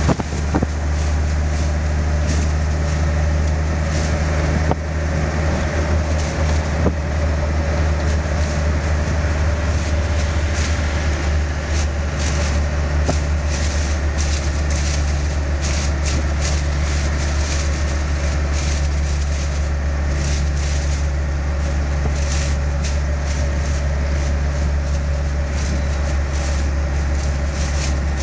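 Truck engine and road noise heard from inside the cab while cruising on a highway: a steady low drone with light rattles over it.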